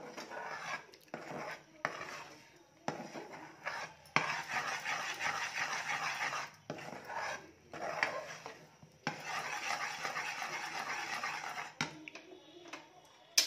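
Steel spoon stirring and scraping thick, cooked jaggery syrup around a metal pan, in several spells with short pauses between. A single sharp tap comes near the end.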